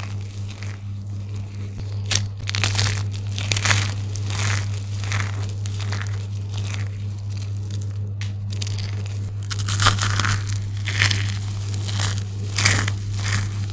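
Dry soap shavings and crumbled soap pieces squeezed and crushed in the hands: a steady run of crisp, gritty crunching and crumbling, several crunches a second, with a few sharper ones standing out. A steady low hum runs underneath.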